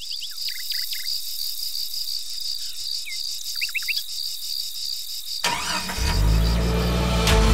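A steady pulsing chorus of crickets, with a few short quick chirps twice. About five and a half seconds in, loud music with a deep bass comes in suddenly and takes over.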